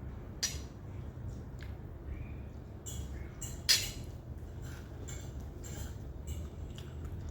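Cutlery clinking against plates and bowls during a meal: scattered light clicks, the sharpest about halfway through, over a low steady hum.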